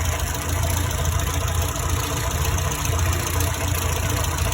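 Warmed-up Morris Minor engine idling steadily, its SU carburettor open to the air with the air filter housing removed.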